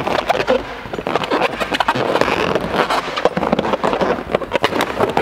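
Latex party balloons rubbing against one another with a dense run of sharp crackles and squeaks, as a balloon piece is pushed and twisted into a balloon column.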